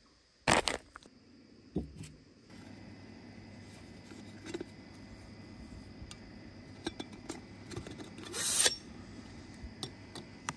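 Camp coffee gear handled on a wooden picnic table: a crinkle as a bag of ground coffee is set down, then light metallic clinks and rustles as a titanium pot is slid out of a mesh bag, with a brief loud rustle about eight seconds in. A faint steady low hum runs underneath from about two and a half seconds in.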